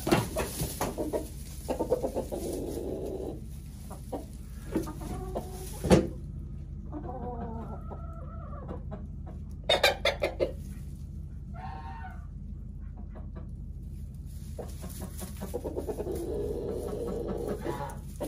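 Chickens clucking, a rooster and hens, with low calls coming on and off. There are a few sharp knocks, the loudest about six seconds in and a cluster about ten seconds in.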